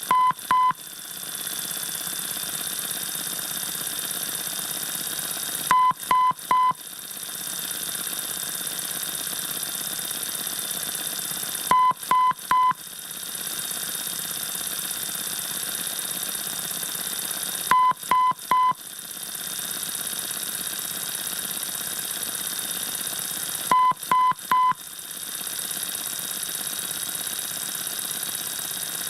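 Radio static: a steady hiss with a faint high whistle, broken about every six seconds by three short, quick beeps.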